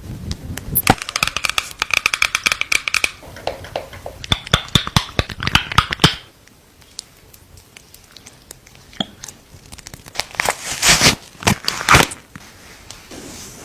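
Makeup products and their packaging being handled: quick runs of clicks and taps on hard cases for the first six seconds, then, after a quieter stretch, loud crinkling, tearing bursts about ten to twelve seconds in.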